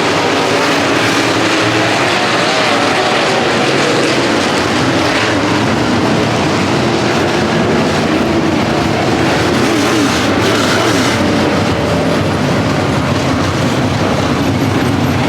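A dirt-track race car's engine running hard, loud and continuous, its pitch rising and falling as the throttle changes.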